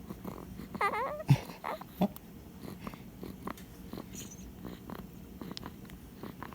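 A pet recovering from surgery gives one short, wavering high-pitched cry about a second in, followed by a sharp knock and a few soft ticks.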